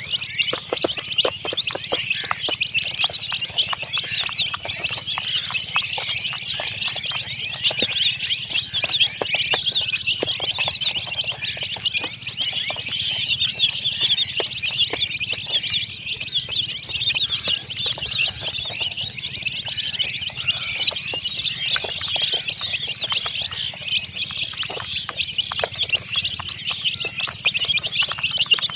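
A brood of domestic chicken chicks peeping continuously, many high-pitched peeps overlapping into a steady chorus.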